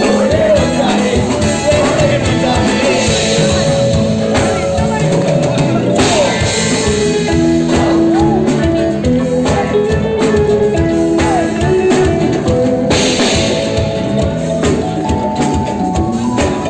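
Loud dance music with a drum beat and a singing voice, played for dancing, with voices from the crowd mixed in.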